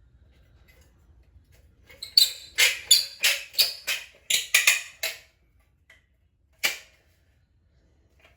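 Caulking gun loaded with a tube of silicone sealant being pumped: a quick run of about nine short, sharp strokes, roughly three a second, then one more stroke about a second and a half later.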